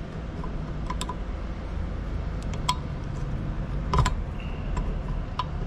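Small metallic clicks and taps of a cotter pin and clevis being worked by hand on a Hale fire pump's manual shift cable linkage, scattered, with the loudest about four seconds in, over a steady low hum.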